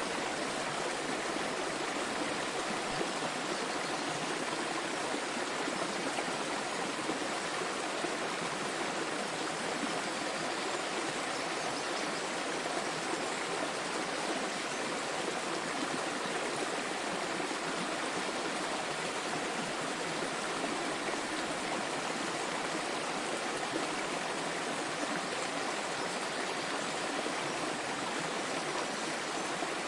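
Small waterfall: water splashing and flowing in a steady, even rush with no breaks.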